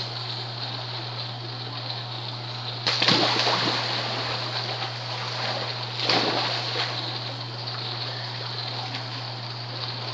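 Two loud splashes about three seconds apart as people jump into a swimming pool, with water churning and lapping in between.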